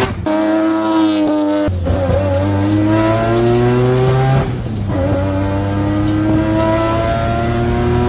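Turbocharged three-rotor Mazda rotary engine pulling hard under boost, heard from inside the cabin. Its note climbs through the gears and drops at the shifts, just after the start and again about four and a half seconds in. A high turbo whistle rises with the revs and falls away at the second shift.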